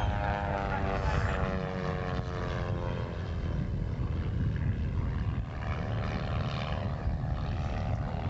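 Piston engine and propeller of a small aerobatic plane passing by, its pitch falling over the first three seconds, then a steady drone as it climbs away.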